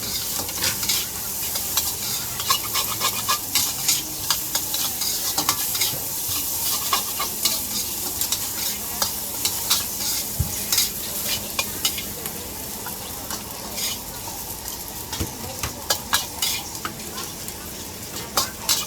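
Chicken fried rice being stir-fried in a hot wok: a steady sizzle, with a metal spatula scraping and clanking against the pan many times at an uneven rhythm.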